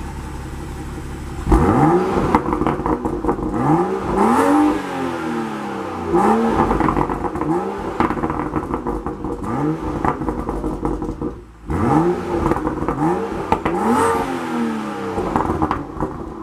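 BMW M235i's turbocharged 3.0-litre inline-six, fitted with an aftermarket intake, revving hard over and over, its pitch climbing and dropping about once a second. It starts a second and a half in and breaks off briefly about eleven seconds in.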